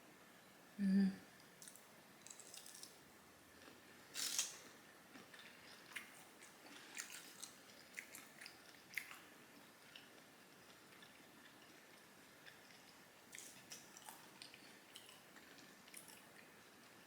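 Close-miked chewing and lip-smacking with scattered soft clicks. One short, low vocal sound comes about a second in, and a louder sharp burst comes around four seconds in.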